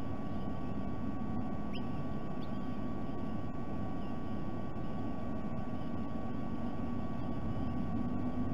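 Steady low outdoor rumble with a constant thin electrical hum tone running through it; a brief high rising chirp about two seconds in.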